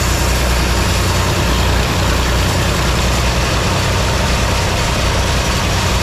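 Large sawmill band saw running with a steady low hum under a loud even hiss, as a wooden plank is fed through the blade.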